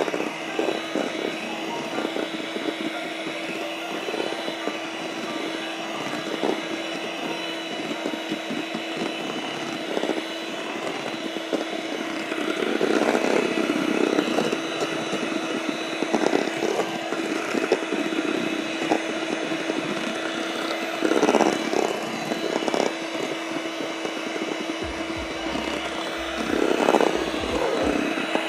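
Electric mixer running steadily at one speed, its beaters whipping egg whites and sugar into meringue, with frequent knocks of the beaters against the bowl and a few louder stretches.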